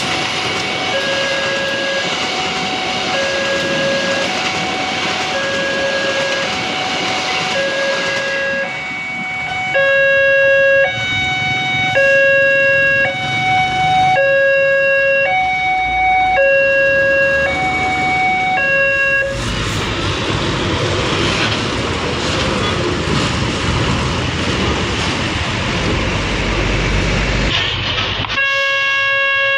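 Railway level-crossing warning alarm sounding a repeating electronic two-tone chime, alternating pitch about once a second. About twenty seconds in, a passing train's loud rumble covers the alarm for some eight seconds, and then the chime is heard again.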